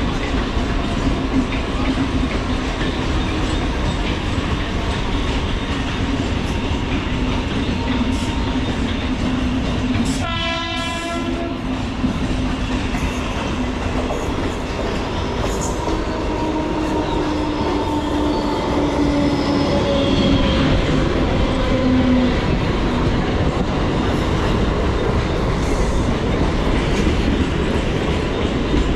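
Mumbai suburban electric local trains running on the tracks with a steady rumble and wheel clatter. A short horn blast sounds about ten seconds in, and a falling whine follows in the middle. The rumble grows louder in the second half as an air-conditioned local comes through close by.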